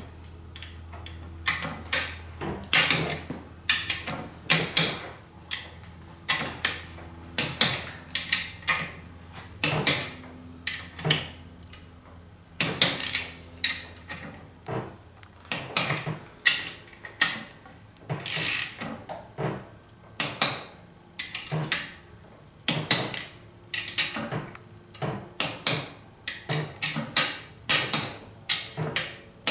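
Ratcheting torque wrench turning propeller hub bolts, clicking in short irregular runs as each bolt is drawn down in turn. The bolts are being brought to an intermediate torque of about 18 newton meters in a star pattern, ahead of the final torque.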